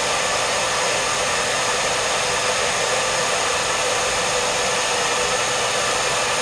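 Hand-held hair dryer running steadily, an even hiss of rushing air with a faint steady motor whine.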